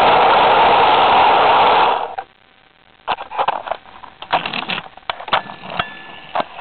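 N-scale model train running on its track, heard as a loud steady rushing noise through a camera riding on it, which stops abruptly about two seconds in as the train halts. After that come scattered light clicks and taps.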